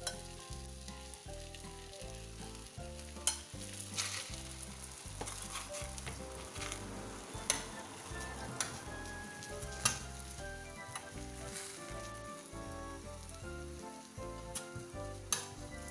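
Methi paratha sizzling in oil in a nonstick frying pan while oil is spread over it with a spoon. A steady sizzle is broken by a few sharp clicks of the spoon against the pan.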